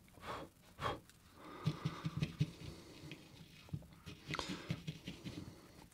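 Two short breaths, then a run of faint, irregular light knocks and rustling from handling the soldering iron and solder wire on the workbench mat.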